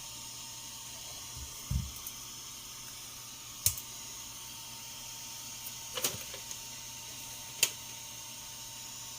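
Steady hiss with a short low thump near two seconds in, then three sharp clicks spread a couple of seconds apart.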